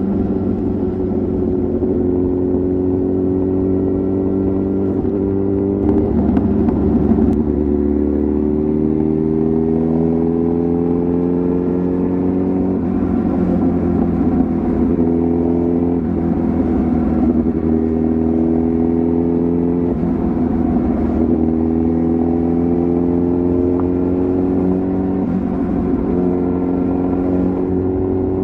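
Kawasaki ZX-10R inline-four sportbike engine and exhaust running under load. The pitch climbs steadily and drops back at each of several upshifts as the bike pulls through the gears.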